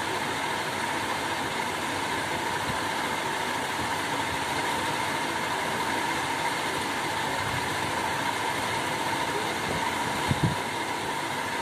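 Steady machine hiss with a faint high, even hum throughout. Two soft thumps come about ten seconds in.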